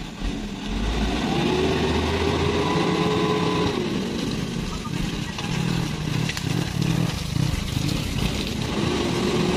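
Overloaded Mitsubishi Fuso truck's engine revving up and down as it labours through slippery mud. A motorbike's engine passes close by about midway.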